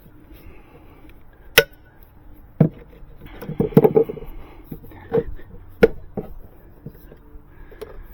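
Hammer blows on a wooden deck stair tread as its nails are worked loose: about half a dozen sharp knocks at uneven gaps, with a quick cluster of them about halfway.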